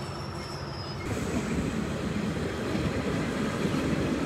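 Running noise of a moving train heard from on board: steady wheel-on-rail rumble that grows louder about a second in.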